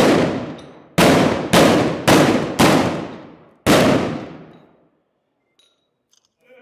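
Small hand-held black-powder cannons fired in a ragged volley: six loud bangs, four of them in quick succession about half a second apart. Each bang has a long echoing tail.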